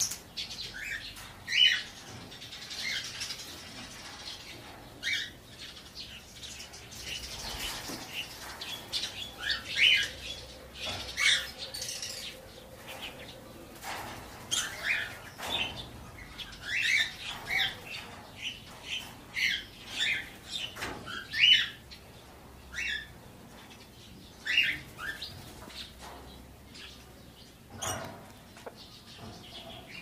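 Mixed aviary of budgerigars, lovebirds and finches chirping: many short, high calls scattered throughout, busiest in the middle, with occasional wing flutters.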